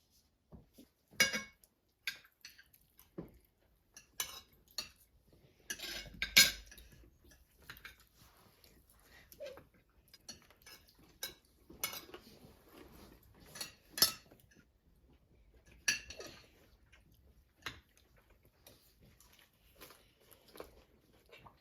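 Dishes and cutlery clinking and knocking in a home kitchen: a string of short, separate clinks a second or two apart, the loudest about a second in and about six seconds in.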